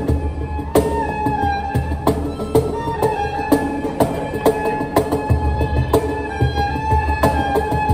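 Erhu playing a sustained melody that slides between notes, over a steady cajon beat of deep bass thumps and sharp slaps, roughly two strikes a second.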